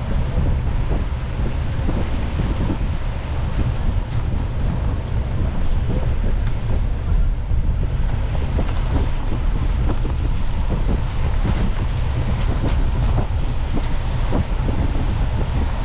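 Car driving on rain-wet city streets: a steady low rumble of road and wind noise, with scattered short ticks.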